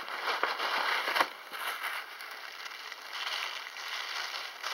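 Paper gift bag and wrapping rustling and crinkling as a gift is pulled out, loudest for about the first second, then softer crinkles.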